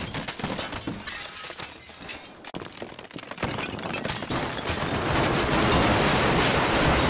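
Crashing and crumbling sound effects of a building being smashed: scattered cracks and crackling debris at first, then, from about three and a half seconds in, a crash of falling rubble that swells and holds loud.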